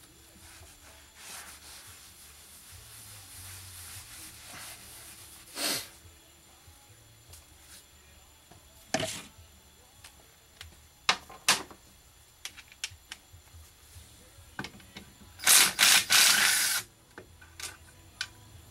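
Scattered clicks and metal knocks of hand tools working on a cast-iron Ford Cruise-O-Matic automatic transmission during disassembly, with a louder burst of noise lasting about a second near the end.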